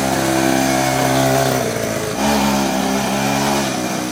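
Small engine of a home-built pocket bike running and revving, its pitch rising and falling in surges, with a fresh rev about two seconds in.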